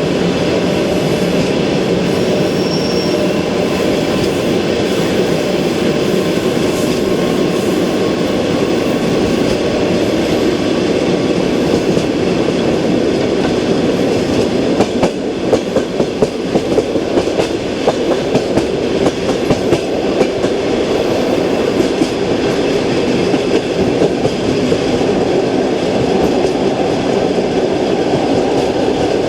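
Passenger express train running over jointed track, heard from inside the carriage: a steady rumble with the wheels clacking over the rail joints. A run of sharper, louder knocks comes about halfway through.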